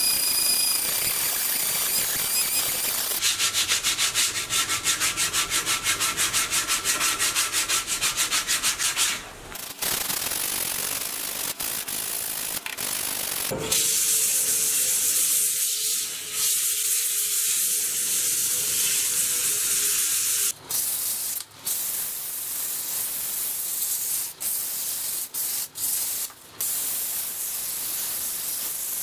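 Wood being sanded: a cordless rotary tool with a small sanding drum whines and pulses as it works over a wooden cylinder, then sandpaper is held against a wooden fuselage spinning on a lathe, a steady hiss over the lathe's hum that breaks off briefly several times near the end.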